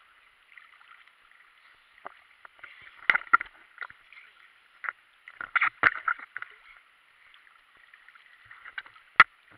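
Sea water sloshing and slapping against a snorkeller's camera bobbing at the surface, muffled, with a few short, sharp splashes: a pair about three seconds in, a cluster around six seconds, and one sharp, loud one about nine seconds in.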